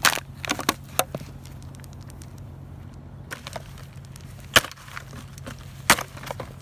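Irregular sharp knocks and clacks of hard objects striking, some close together and some a second or more apart, over a steady low hum.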